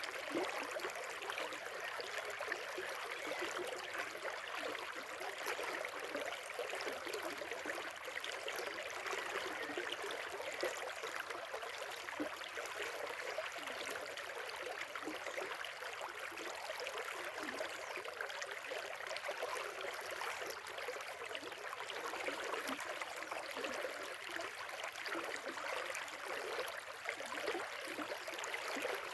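A river flowing, with a steady, unbroken rush of running water.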